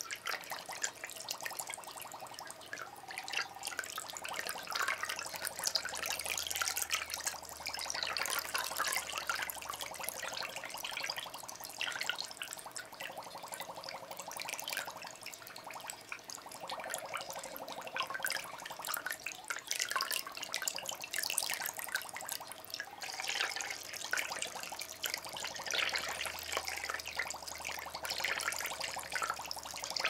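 Water trickling and bubbling steadily, with many small drips and splashes. It swells louder for a few seconds at a time, about a quarter of the way in and again near the end.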